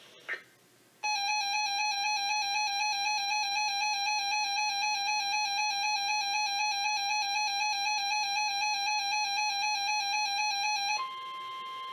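Weather radio alert tones: an electronic alarm warbling rapidly between two pitches for about ten seconds. About eleven seconds in it switches to the steady single-pitch 1050 Hz NOAA Weather Radio warning alarm tone, signalling that a warning is about to be read.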